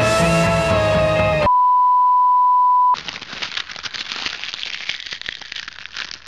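Guitar music cuts off about a second and a half in, followed by a steady, loud, single-pitched beep like a test tone lasting about a second and a half. After it comes a dense, irregular crackling, like old-record or film crackle.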